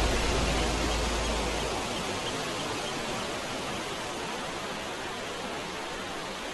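Wind blowing through tree foliage, a steady rushing hiss. Low rumble of wind on the microphone for about the first two seconds, after which the wind eases off a little.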